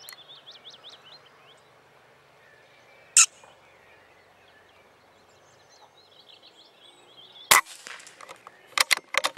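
Sharp cracks of air rifle shots: one about three seconds in, a louder one about seven and a half seconds in, and a quick run of four or five cracks and clicks near the end. Small birds chirp in between.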